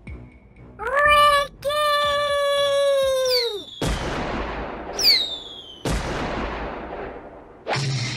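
A drawn-out yell, then Roman candle fireworks firing: two shots about two seconds apart, each a short falling whistle ending in a bang.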